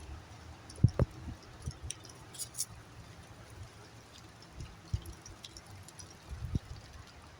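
Gusty wind buffeting the microphone: a low rumble broken by several dull thumps, two of them close together about a second in, with a few faint high ticks in between.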